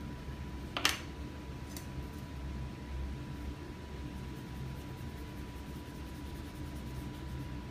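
Steady low room hum with a faint constant high tone, broken by one sharp click about a second in and a fainter click shortly after.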